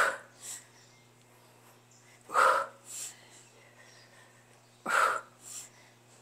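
Hard, forceful exhalations in time with ab exercise repetitions (leg raises), three times about two and a half seconds apart. Each strong blow of breath is followed by a shorter, softer puff.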